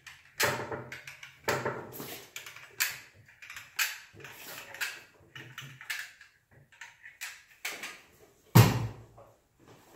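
Hand caulking gun squeezing construction adhesive onto a wooden 2x4, its trigger ratcheting in sharp clicks about once a second. A heavier thump comes near the end.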